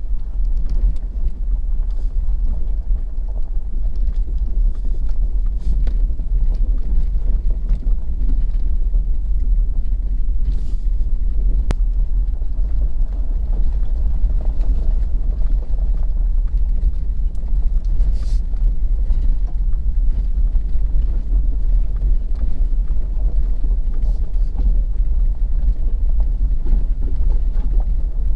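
Steady low rumble of a Ford F-250's Power Stroke turbodiesel and its tyres on a rough gravel track, heard from inside the cab, with a few faint knocks.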